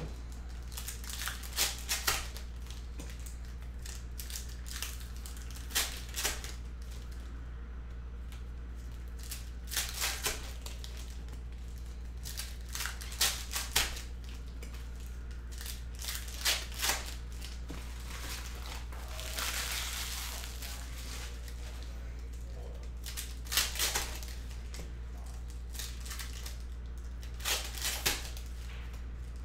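Foil trading-card packs being torn open and crinkled, with the cards handled between them. The crackles come in short clusters every few seconds, with a longer stretch of crinkling about twenty seconds in, over a steady low hum.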